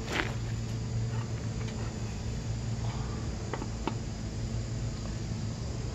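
Light clicks and knocks of a motorcycle's rear wheel and drum-brake hub being handled and worked back into place: a sharp one just after the start and two more past the middle, over a steady low hum.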